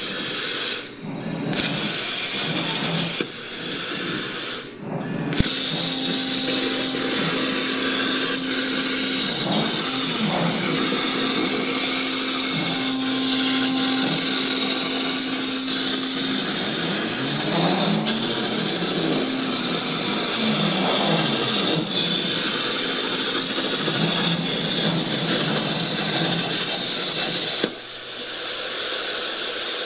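Plasma cutter torch hissing steadily as it cuts steel plate on a CNC table, with two short breaks in the first five seconds. From about five seconds in, the table's stepper motors whine in steady tones that step and slide up and down in pitch as the torch follows the curves of the cut.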